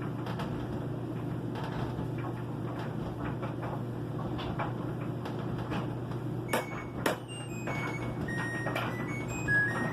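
LG front-load washing machine running in its extra-high spin with a steady low hum. Two sharp knocks come about six and a half and seven seconds in. A run of short high-pitched tones at changing pitches starts near the end.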